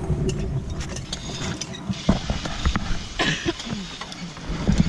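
Zipline hardware clicking and clanking: the trolley, carabiners and lanyards knocking on the steel cable and platform rigging as the rider is brought in. The clicks are irregular, with a few louder knocks about two and three seconds in.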